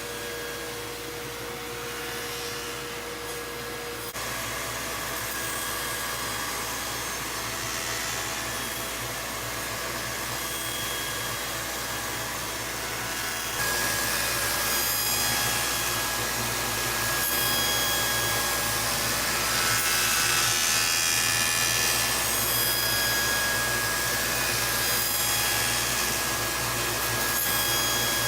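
Machinery or a power tool running: a steady whirring, grinding noise that changes abruptly about 4 and 13 seconds in.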